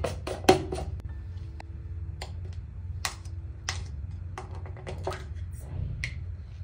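Plastic body-butter tub being handled and its screw lid taken off: a string of light plastic clicks and taps, sharpest in the first second, over a low steady hum.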